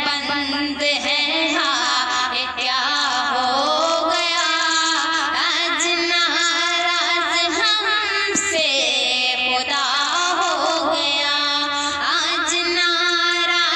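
A woman singing an Urdu devotional song, with long, wavering held notes.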